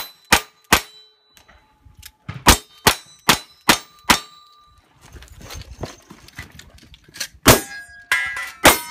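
Revolver shots at steel targets, each followed by the short ring of the struck plate. Three quick shots at the start, a string of five at about three a second a few seconds in, then two more after a pause near the end.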